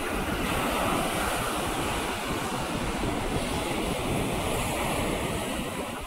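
Small waves breaking at the shoreline and foam washing up the sand: a steady surf wash that swells a little about a second in. Wind buffets the microphone with a low rumble underneath.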